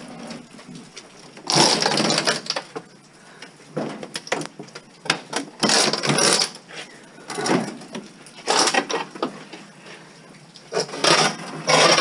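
Scraping and rubbing in about six irregular bursts as a large flat-screen TV is gripped and shifted by hand.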